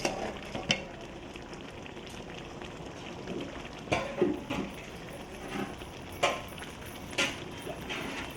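Cooking sounds: a metal utensil knocks and clinks against a pan several times over a faint, steady sizzle.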